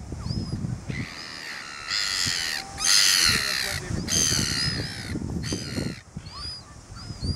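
Red-billed gulls giving harsh, squealing calls in several long bursts, loudest from about two to five seconds in. A faint high chirp repeats about twice a second in the background.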